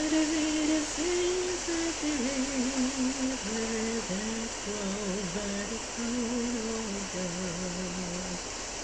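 A person humming a slow melody without words, holding each note and stepping gradually lower in pitch, stopping shortly before the end. A steady rushing hiss lies underneath.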